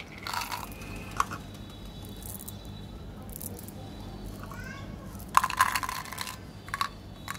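Small sugar-coated chocolate candies rattling and clicking against a small plastic bottle as they are tipped out into the hand and dropped back in, with a louder clatter of candies falling into the bottle about five and a half seconds in.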